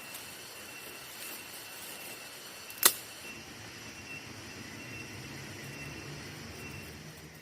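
Campfire burning with a steady hiss and one sharp, loud pop about three seconds in, over a faint steady high tone.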